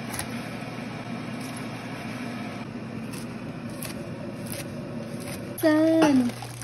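Chef's knife cutting puffed fish maw on a wooden cutting board, a series of light chops over a steady hum. Near the end comes a loud, brief pitched sound whose pitch slides down as it stops.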